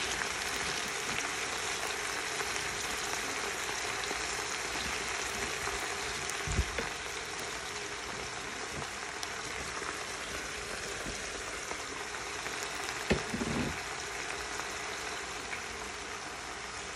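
Chopped romaine lettuce sizzling steadily as it sautés in a pan, with two brief knocks about six and a half and thirteen seconds in.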